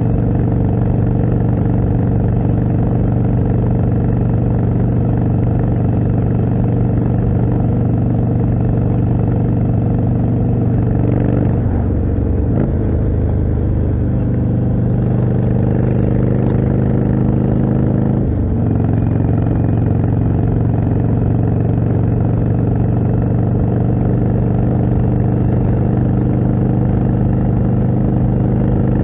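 Indian Chieftain's 1811 cc V-twin running through a Jekill & Hyde exhaust while riding, a steady cruising note. About 12 seconds in the engine note changes and runs unevenly for several seconds, then settles back to a steady note.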